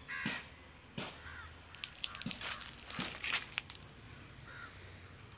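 Footsteps crunching on gravel and dry leaves, with a few short harsh bird calls.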